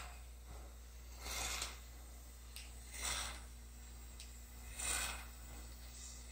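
Four short hissing puffs, about one every one and a half to two seconds, as 5% lidocaine is sprayed into the throat from an oxygen-driven homemade atomizer held in the mouth, timed with breaths.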